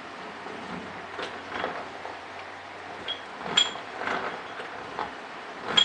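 Lathe tool bit being fed in and out of a metal pulley's bore to shape a 1/4-inch keyway a little at a time: a series of short scraping strokes with sharp metallic clinks, the loudest clinks about three and a half seconds in and at the end.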